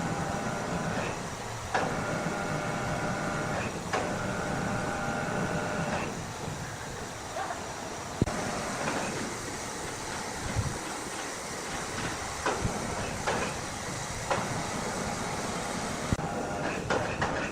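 Machinery running with a steady mechanical din and scattered knocks and clanks; a whine of several steady tones sounds in three stretches during the first six seconds.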